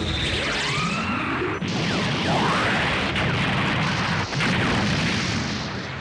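Film-soundtrack space-battle sound effects: a dense run of explosions and crashes, threaded with many sweeping whooshes that arc up and down in pitch.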